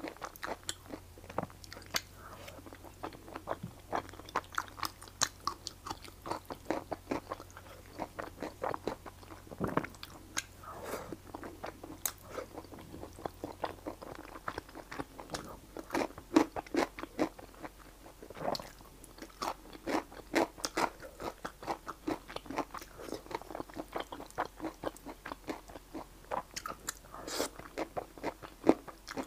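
Close-miked chewing and slurping of saucy fried rice noodles, with a dense run of sharp wet mouth clicks throughout.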